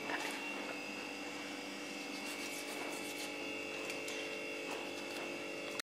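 Faint rubbing and light clicks of hands and a knife working raw chicken pieces in a bowl of water, over a steady hum.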